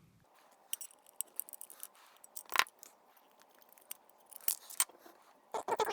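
Scattered small clicks and ticks from handling the small metal and plastic parts of a disassembled iPod, with the loudest click about two and a half seconds in and a quick run of clicks near the end.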